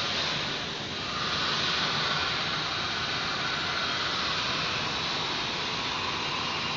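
Steady rushing hiss of outdoor ambient noise that grows louder about a second in and then holds.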